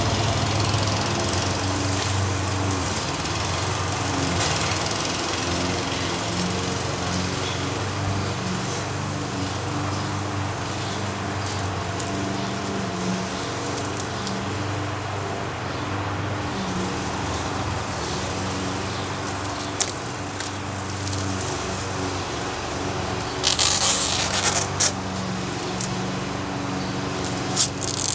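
An engine runs steadily in the background, its level wavering. Near the end, plastic wrap crinkles in short bursts as it is peeled off a freshly painted model airplane.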